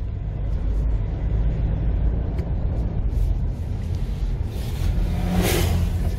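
Steady rumble of a Mahindra Xylo SUV driving along the road, engine and road noise, with a rushing swell about five seconds in.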